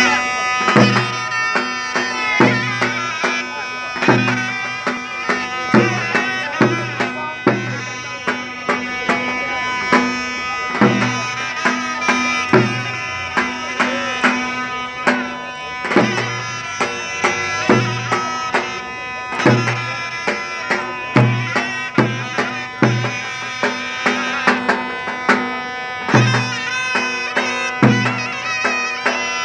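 Davul and zurna playing a zeybek dance tune: a reedy, piercing wind melody over heavy, regular drum beats.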